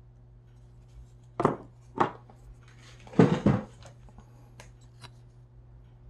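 Hard objects knocking and clattering: two sharp knocks about a second and a half and two seconds in, a short rattling cluster around three seconds in, then a few faint clicks, over a steady low hum.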